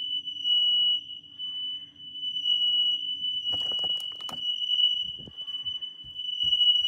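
Smoke alarm sounding one steady, piercing high-pitched tone, set off while cooking on the stove. A few sharp knocks come about three and a half to four and a half seconds in.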